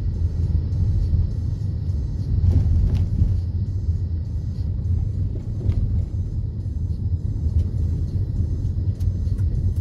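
Steady low rumble of a car driving along a street, heard from inside the cabin: road and tyre noise with the engine underneath.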